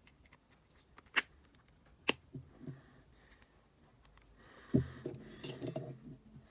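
Small sharp clicks and light taps of a precision screwdriver and tiny parts on an iPhone 6s as its screws are put back in. Two sharp clicks come about a second and two seconds in, then a brief soft rustle and a low thump a little before five seconds, followed by lighter taps.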